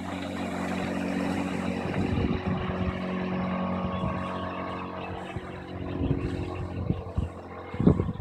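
Johnson 8 hp outboard motor running steadily at speed, pushing a small boat on the plane. From about two seconds in there are irregular low thumps and buffeting, heavier near the end.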